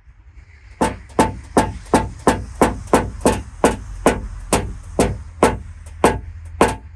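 Paintless dent repair tap-down: a knockdown tool struck with a small hammer against a car fender's sheet metal. The sharp, ringing taps start under a second in and go on at an even pace of about three a second.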